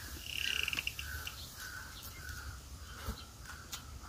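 Birds calling: a quick buzzy trill near the start, then a run of short repeated calls about two a second, over a low background rumble. There are a couple of sharp clicks near the end.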